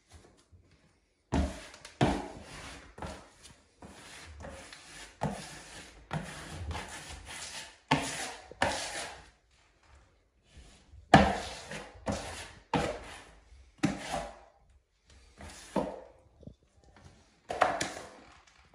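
A plastic wallpaper smoother and a hand sweeping and rubbing over wallpaper on the wall, in a run of short scraping swipes with a few knocks, pausing briefly near the middle.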